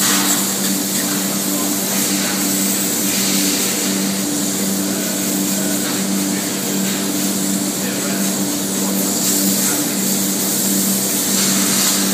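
Spray foam insulation gun hissing steadily as it sprays foam, over a steady low hum.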